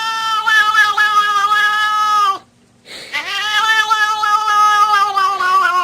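A cat yowling in long drawn-out calls. Each holds a steady pitch and then drops as it ends. One call ends about two and a half seconds in, and after a short break a second long call follows.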